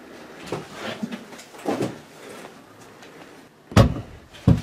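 Knocks and thumps in a small room: a few softer thuds, then two loud, sharp knocks close together near the end.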